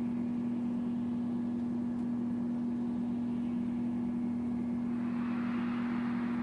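A steady machine hum with one strong low tone and a faint hiss, unchanging throughout.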